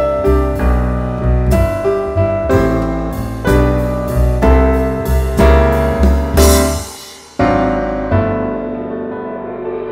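Piano music: a steady run of struck notes and chords, about two a second. Near the end there is a short break, then one last chord that rings and slowly fades away.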